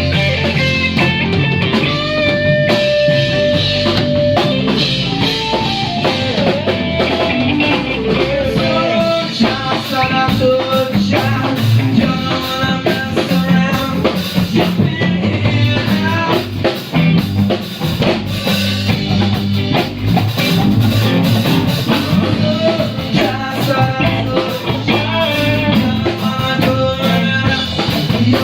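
A band playing an improvised rock jam, with guitar lines over a drum kit.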